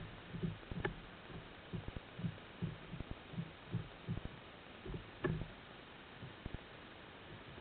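Irregular low, dull thumps, about two a second and thinning out in the second half, with two sharper clicks, heard muffled through an underwater camera housing on a lobster trap.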